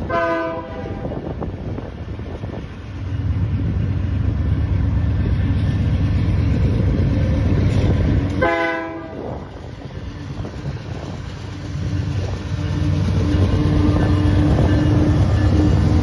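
Canadian Pacific diesel freight locomotive sounding two short air-horn blasts, one at the start and one about eight seconds later, over the heavy rumble of the diesel engines working hard as the train departs. The engine rumble grows louder as the locomotives pull past close by near the end.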